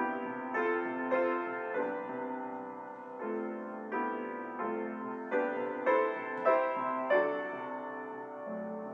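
Solo piano playing slow, gentle chords, each chord struck and left to ring before the next.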